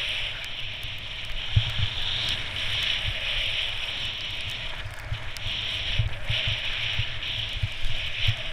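Skis sliding and scraping over packed snow, a steady hiss that swells and eases with each turn, with wind buffeting the microphone in irregular low gusts.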